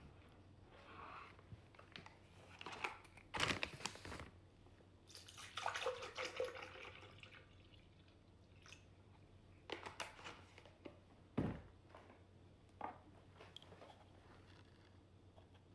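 Intermittent kitchen handling sounds: knocks, clinks and rustles as containers and ingredients are handled, with a low thump about eleven seconds in.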